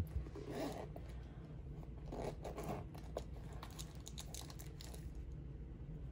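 The zipper of a small cosmetic pouch is pulled open a couple of seconds in. A run of light clicks and rustles follows as items are handled.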